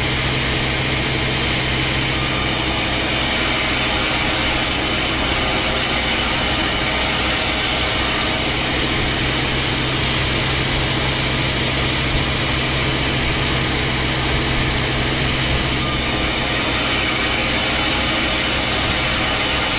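Wood-sawing machinery running steadily: an engine hum that holds at one pitch under an even whirring noise, with no change in speed or load.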